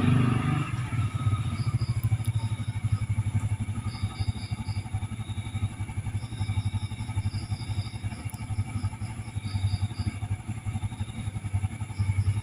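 A steady low rumble with a fast, even pulse, like a small engine idling. Runs of faint, short, high chirps come and go over it.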